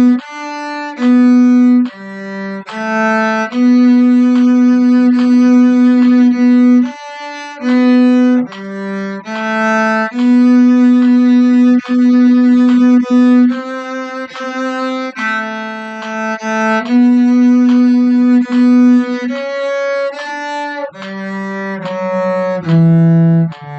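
Cello bowed to play a slow hymn melody: two phrases of single held notes, one after another, with short breaks between some of them.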